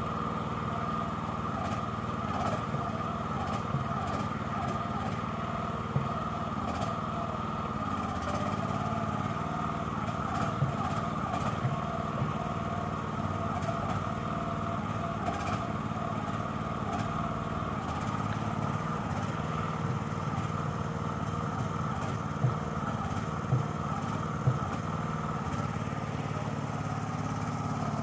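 Walk-behind tracked mini dumper's engine running steadily as the machine crawls through mud, with a few sharp knocks, three of them in quick succession near the end.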